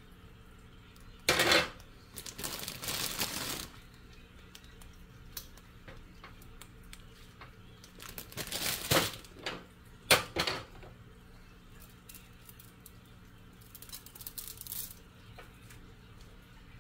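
Cooking utensil clinking and scraping against a soup pot in short, separate bursts: once about a second in, again around nine and ten seconds, and more faintly near the end.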